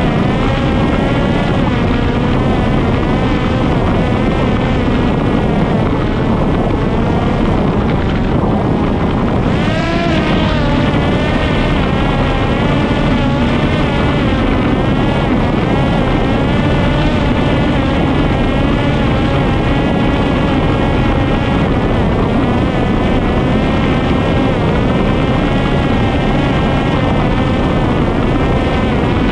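Parrot Disco fixed-wing drone's electric motor and pusher propeller whining in flight, heard from a camera on the airframe, with wind rush; the pitch wavers with throttle and dips then climbs again about a third of the way through. The owner finds the original motor sounds unwell, running at too high an rpm.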